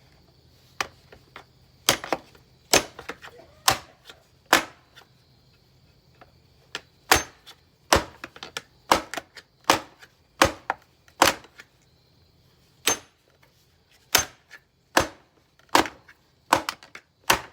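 Repeated sharp blows striking a bagged vacuum cleaner's body as it is being broken open. The blows come irregularly, roughly one or two a second.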